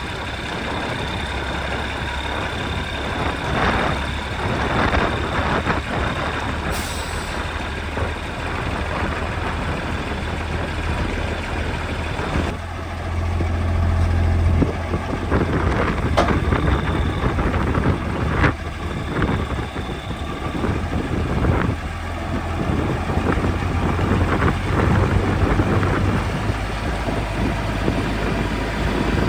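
Heavy goods lorry's diesel engine running steadily, getting louder about halfway through, with a short sharp hiss about seven seconds in.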